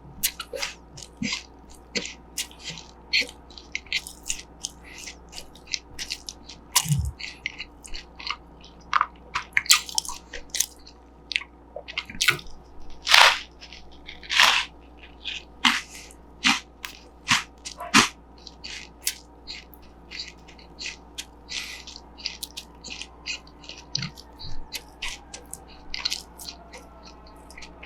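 Close-up crunching and chewing of crunchy corn puffs in a burger bun: a continuous string of sharp, irregular crunches, several a second.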